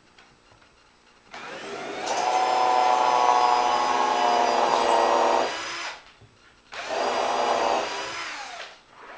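Electric drill drilling a hole, run twice: a longer run of about four seconds, then a shorter one of about two, each spinning up and winding down.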